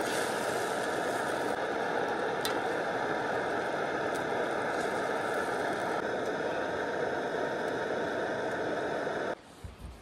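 Steady rushing noise at an even level, cutting off abruptly near the end.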